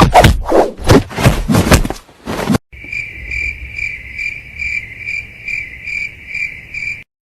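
A rapid run of loud, rough strokes, about five a second, stops after about two seconds. An insect then takes over with a steady high trill that pulses evenly about twice a second and cuts off near the end.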